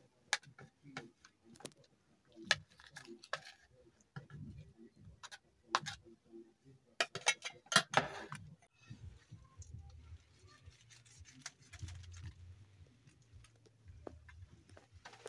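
Metal spoon clinking and scraping against a steel serving bowl and ceramic plates as food is dished out, a run of sharp clinks through the first half. Fewer clinks later, over a low hum.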